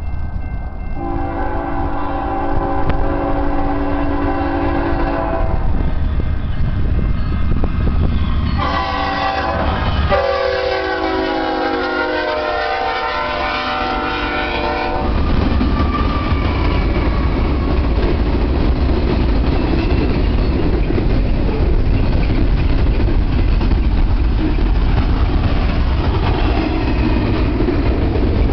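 Diesel freight locomotive's multi-chime air horn sounding two long blasts, the second dropping in pitch as the engines pass. After that comes the steady low rumble and clatter of double-stack intermodal well cars rolling by.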